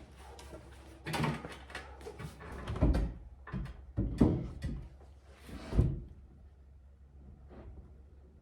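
A series of knocks and clunks from objects being handled, loudest about three, four and six seconds in.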